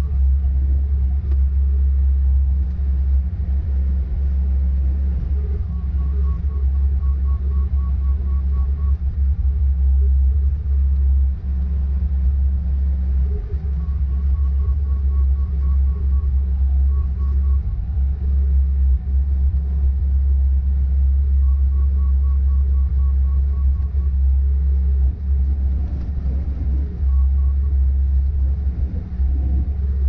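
Bobcat S595 skid steer's diesel engine running steadily while it plows snow, a heavy low rumble heard from inside the cab. A faint, rapid high beeping comes and goes several times.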